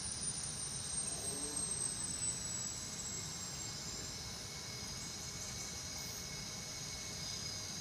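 Steady background hiss with a faint high whine that slowly falls in pitch over the first few seconds.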